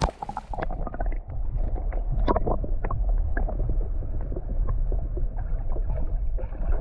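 Underwater sound from a submerged camera: a muffled, steady low rumble of moving water with many sharp clicks and knocks, while a hooked salmon thrashes just below the surface.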